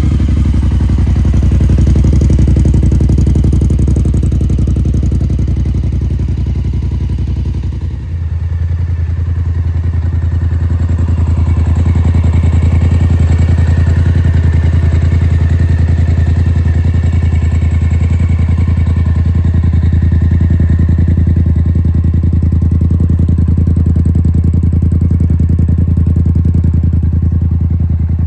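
Polaris Scrambler XP 1000 S twin-cylinder engine running at a steady idle through a freshly installed HMF dual exhaust, just after starting. About eight seconds in the sound changes to a lower, steadier idle.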